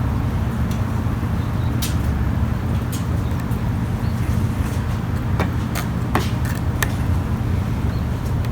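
A steady low mechanical rumble, with a handful of sharp clicks and taps about two to seven seconds in.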